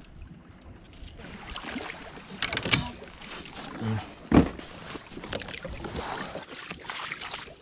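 Scattered knocks, clicks and scrapes of gear being handled in a plastic kayak, with a louder thump on the hull about four and a half seconds in and a brief rushing noise near the end.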